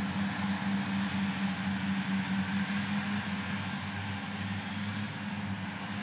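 Claas tractor engine running steadily under load while driving its front and side mowers: a steady low hum that pulses slightly, with an even hiss above it.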